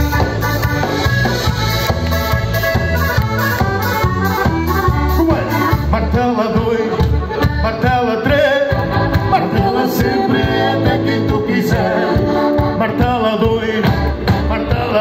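Live band playing an upbeat accordion-led tune over electric bass, electric guitar and drums, amplified through a PA, with a steady driving beat.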